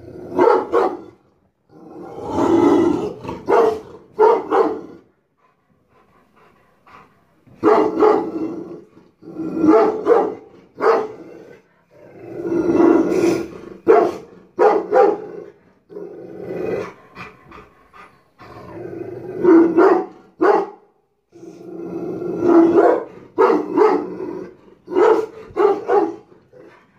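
Rottweiler barking at something outside a window, guarding the house: loud, deep barks in clusters, some drawn out with a growl, with brief pauses between the volleys.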